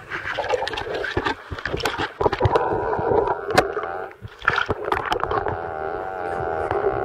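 Bathwater splashing and sloshing around booted feet and soaked clothing in a filled bathtub, with many irregular splashes. About five seconds in the sound turns duller and steadier, heard from under the water.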